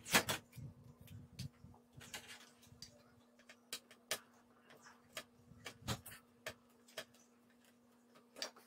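Irregular light clicks and knocks of an opened metal computer power supply casing and a screwdriver being handled, over a faint steady hum.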